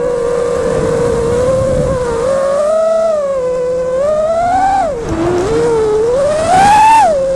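FPV quadcopter's brushless motors whining, the pitch rising and falling as the throttle changes, with a sharp climb to its highest near the end before dropping back.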